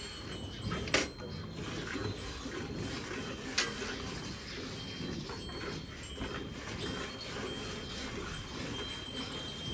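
Hand-milking a cow: milk streams squirting from the teats into a steel pail through a funnel, a steady noisy sound. Two sharp clicks, about a second in and again about two and a half seconds later.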